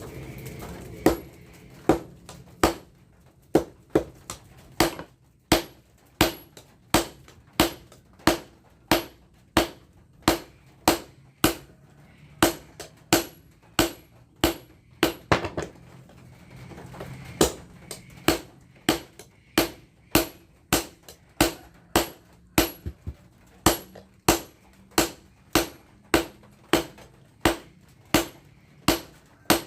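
Hammer blows on the steel of a tractor tiller blade being shaped into a machete, a steady rhythm of about one and a half ringing metal strikes a second.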